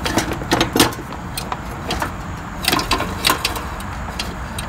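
Sharp metallic clicks and rattles from the kerosene heater's igniter push lever being worked by hand: several in the first second and a quick cluster about three seconds in, over a steady low background rumble.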